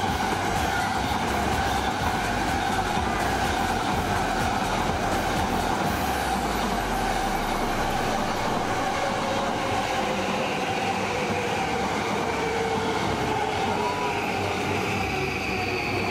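JR Yamanote Line E235 series electric train running past the platform, with a steady rumble of wheels on rail and a whine that slowly falls in pitch in the second half.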